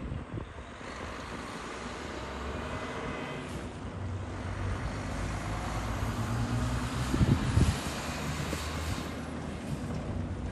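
Volvo FH16 700 truck and trailer driving past on the highway: the drone of its 16-litre diesel engine and its tyre noise grow louder as it approaches, loudest about seven seconds in, then ease off as it goes by.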